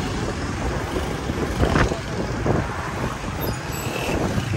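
Road vehicle noise while on the move: engines running amid passing traffic, with a steady low rumble.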